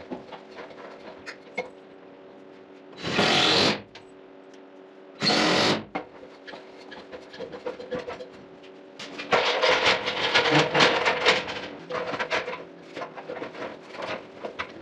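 Aluminium extension ladder being moved and set up against wooden wall framing: two short dragging scrapes, then several seconds of rattling and knocking as it is placed, over a steady low hum.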